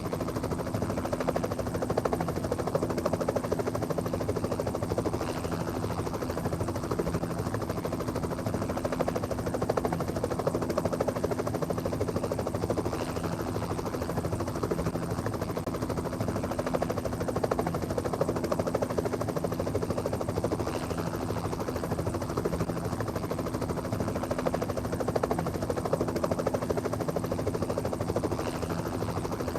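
Steady drone of a vehicle in motion, with a constant low hum that does not change.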